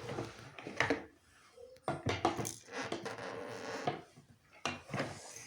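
Small tools clinking and knocking as they are handled, in a string of separate sharp clicks.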